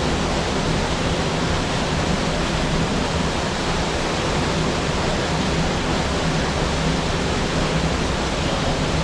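A waterfall rushing: a loud, steady wash of falling water that does not change.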